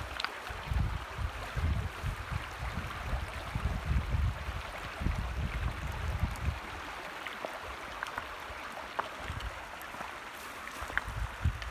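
A shallow creek flowing over rocks, a steady rushing babble. Bursts of low rumble come through the first half and fade after about six seconds, and a few light clicks come near the end.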